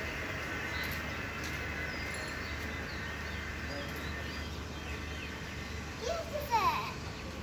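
Outdoor ambience: small birds chirping over a steady low hum. About six seconds in comes a short rising call, the loudest sound.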